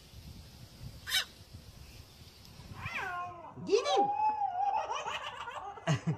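A cat meowing several times, in calls that rise and fall, mixed with a baby's squeals and laughter starting about three seconds in.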